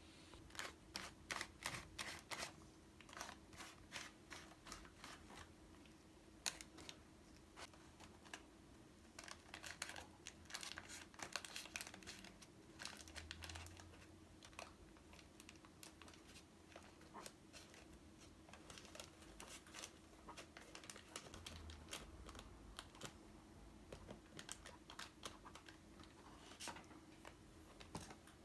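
Faint rustling and crinkling of paper being handled, in scattered bursts of small clicks and taps, over a low steady hum.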